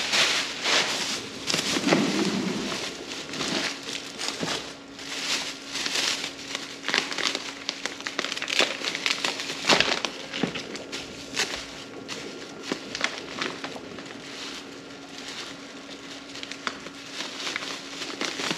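Thin plastic grocery bags rustling and crinkling in irregular bursts as they are handled and rummaged through, over a faint steady low hum.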